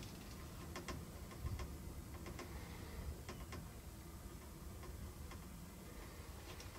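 Faint, irregular clicks and ticks over a low rumble, with one soft low thump about one and a half seconds in.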